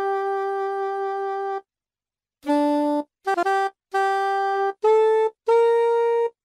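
Alto saxophone playing a folk melody one note at a time. A long held note ends, about a second of silence follows, then a run of shorter notes with brief gaps between them, rising in pitch near the end.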